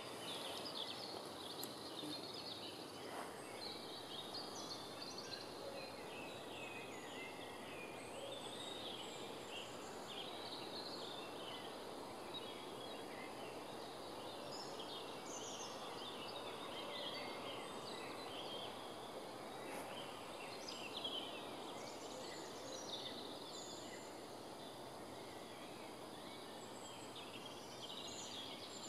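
Several birds singing together: short chirps and phrases overlapping throughout, faint over a steady background hiss.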